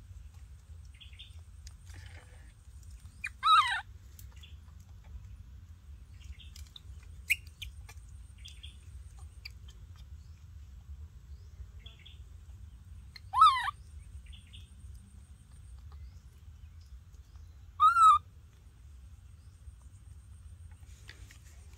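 A baby macaque gives three short, high crying calls that fall in pitch, the first a few seconds in, then two more about ten and fourteen seconds later. Faint scattered chirps and a steady low rumble lie underneath.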